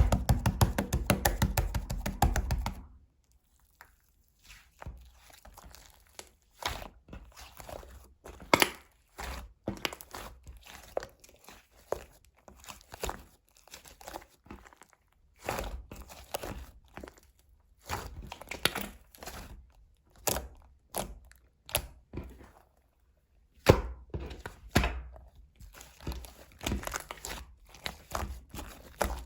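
Hands pressing and squishing slime, making sticky clicks and pops: a fast, dense run of them in the first three seconds, then irregular bursts of clicks with short pauses.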